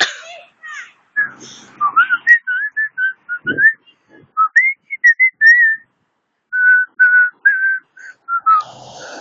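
Whistling: a run of short, clear notes, some sliding up or down in pitch, with a brief pause about six seconds in before the notes resume.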